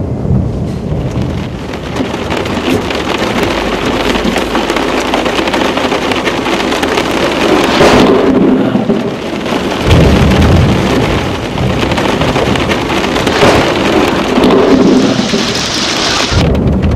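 Heavy thunderstorm: a dense downpour of rain and hail, with thunder rumbling near the start, about ten seconds in and again near the end.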